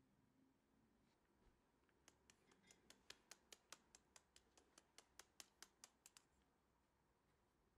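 Faint rapid ticking, about five taps a second for around four seconds, from a small sieve being tapped to dust cocoa powder.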